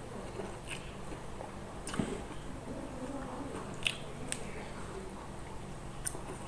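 A person chewing a mouthful of soft, wet cooked eggplant and long beans in curry close to the microphone. There are wet smacking mouth sounds and a few sharp clicks of the lips and teeth. A low steady hum sits underneath.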